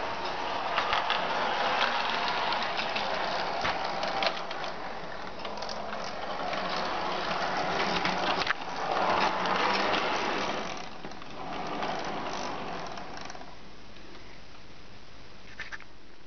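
A 1:24-scale model tram running along its track: the motor and gear drive whir, with many small clicks from the wheels and running gear. The sound swells about nine seconds in, then dies down about thirteen seconds in.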